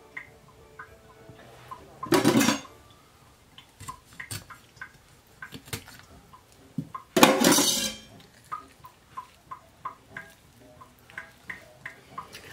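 Kitchen knife working on a whole pompano on a wooden cutting board: two louder scraping strokes, about two and seven seconds in, with many light knocks and clicks between.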